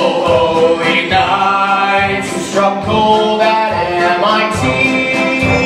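Male voices singing together in harmony, as a stage musical cast, holding long notes that change every half-second or so.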